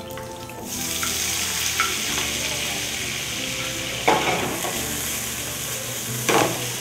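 Boiled tortellini hitting a pan of hot olive oil and garlic: the oil starts sizzling about a second in and keeps up a steady sizzle. Two sharp knocks of the wooden spatula against the pan come near the middle and near the end.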